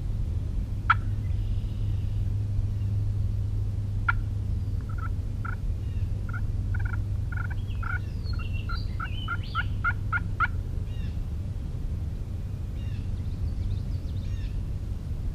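Wild turkey calling: two single sharp notes, then a run of about a dozen short, clucking yelps that come faster and faster before stopping abruptly about ten seconds in. Faint songbird chirps sound over a steady low hum.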